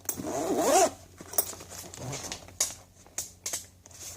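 Zipper on a Veto Pro Pac Tech MCT tool bag being pulled open for about the first second, then scattered light clicks and rustles of tools being handled in the bag.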